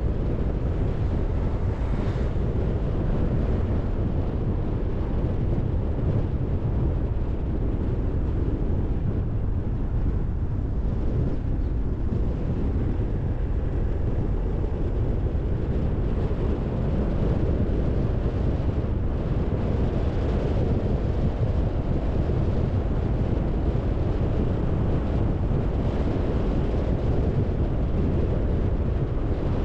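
Steady low rumble of a car on the move: road and wind noise on the microphone, even throughout with no distinct events.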